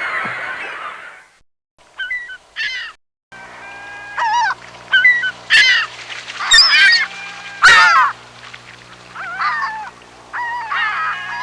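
Seagulls calling: repeated harsh, wavering cries, several birds, in short recordings spliced together with brief silent gaps. A steady low hum runs under the calls from about three seconds in.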